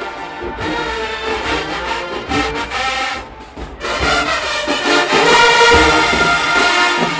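Marching band brass playing a loud tune, with a brief drop about three seconds in before the full band comes back in louder.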